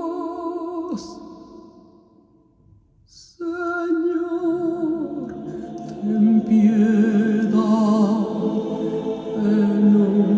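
Vocal music played back through a hi-fi system with a Trafomatic Elegance Evolution amplifier and a Rockna Wavelight R2R DAC. Sung notes with vibrato fade away about a second in and leave a short near-silence. A new sung phrase then comes in, with a steady low held note beneath it from about the middle on.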